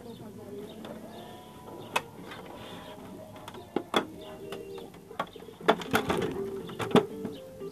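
Sharp clicks and knocks from hands handling the plastic body of an Elgin household sewing machine, several in the second half, over a bed of low held tones.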